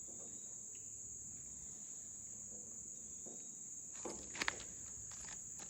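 Steady, high-pitched chorus of insects chirring without a break, with a few sharp clicks and knocks about four seconds in.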